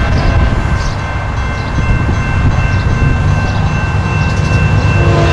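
Steady low rumble of an approaching freight train with a few thin steady high tones over it; near the end a Norfolk Southern diesel locomotive's horn starts to sound and holds on.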